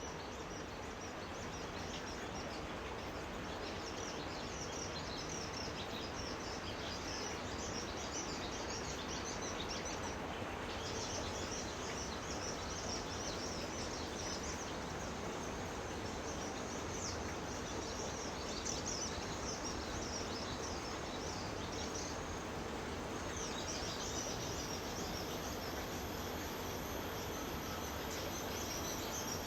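Many small birds chirping and twittering in high, rapid bursts over a steady background hiss, with brief lulls about ten seconds in and again past twenty seconds.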